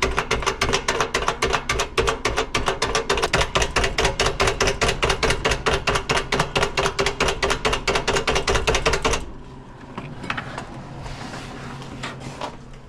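Rapid, even metallic tapping, about six or seven strikes a second, with a ringing note under it, stopping suddenly about nine seconds in. It is knocking blast media and rust out of a clogged sandblaster filter.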